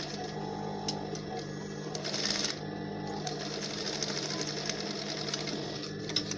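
Industrial lockstitch sewing machine running, stitching a zipper onto a fabric flap, with a steady motor hum under the rapid stitching. It gets briefly louder about two seconds in.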